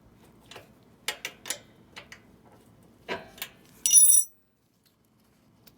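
Hand tools on the minibike's brake drum mount: a series of irregular metallic clicks and knocks as the nut is tightened, then a short, bright metal ring about four seconds in, the loudest sound.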